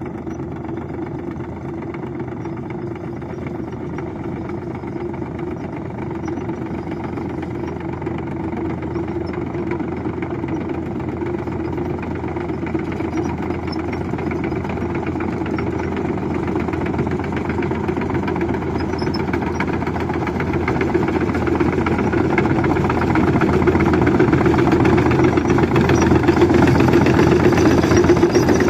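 JCB excavator's diesel engine running steadily, growing gradually louder.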